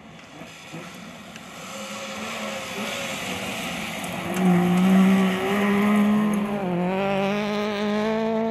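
Rally car engine at full throttle, approaching on a gravel stage and passing close, growing louder to a peak about halfway through, with gravel noise from the tyres; the engine pitch climbs again near the end.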